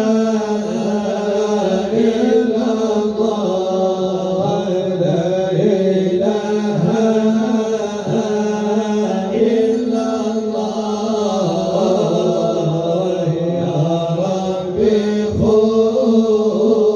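Arabic Sufi devotional chanting (madih nabawi), with voices holding long, slowly bending notes of the song.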